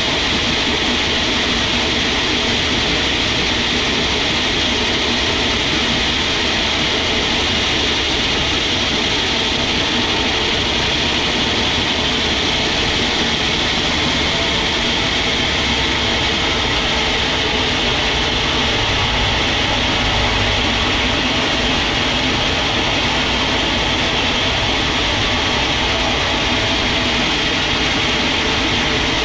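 Sawmill machinery running steadily, a constant loud mechanical noise with a hissing upper band and a low rumble underneath.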